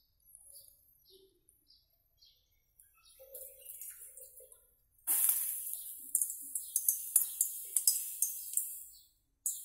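Water sizzling on a hot iron kadai over a gas flame: a loud hiss full of crackles that starts suddenly about five seconds in and dies away near the end. Before it, a bird chirps over and over at a quick steady pace.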